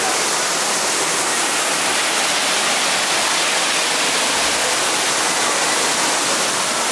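Waterfall cascading down rockwork into a pool: a steady rush of falling water.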